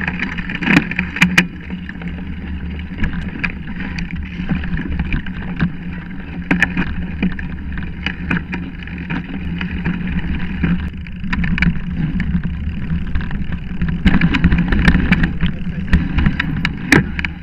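Mountain bike rolling fast down a dirt trail, heard from a camera mounted beside the front wheel: a steady rumble and rush of tyre and ride noise, broken by sharp rattles and knocks as the bike hits bumps, roots and rocks, busiest near the end.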